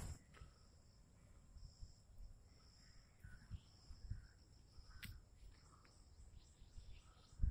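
Faint, steady high-pitched trill of insects such as crickets, with a few soft low bumps from the phone being moved and some faint short chirps.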